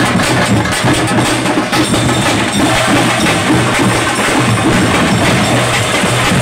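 Festival procession drum troupe playing a loud, fast, unbroken beat of sharp, closely packed strikes.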